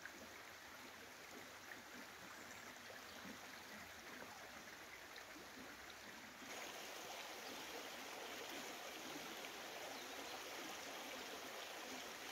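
A small river running over stones, a steady rush of water that becomes suddenly louder about six and a half seconds in.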